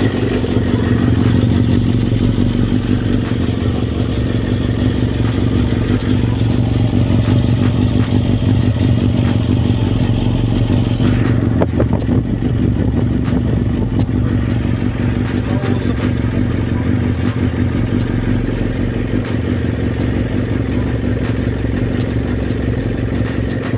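Kawasaki ZX-7R inline-four engine idling steadily through a carbon-fibre slip-on muffler. The owner says the idle suddenly drops and the engine dies.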